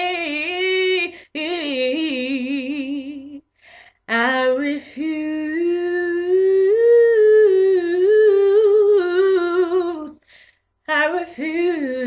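A woman singing a cappella without words, humming and running the melody in four phrases with vibrato and short breaks for breath; the longest phrase is held for about six seconds in the middle.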